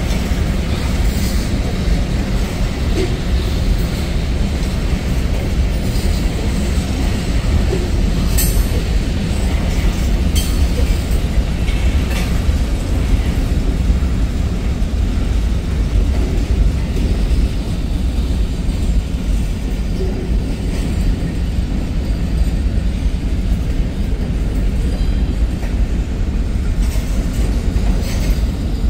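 Freight train's covered hopper cars rolling past: a steady rumble of steel wheels on rail, with a few sharp clicks from the wheels and running gear near the middle.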